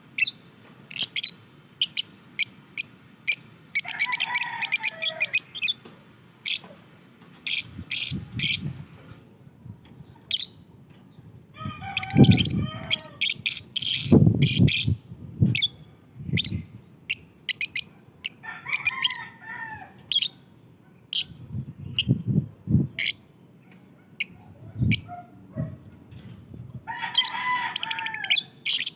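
Lovebirds calling: a run of sharp, high chirps at irregular intervals, broken four times by bursts of fast, warbling chatter. Low thumps come in between, the loudest about twelve to sixteen seconds in.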